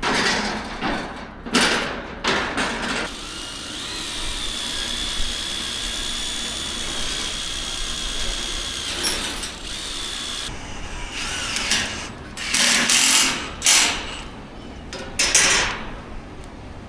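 A power tool in use: short loud bursts, then a steady high whine for about six seconds, then more bursts.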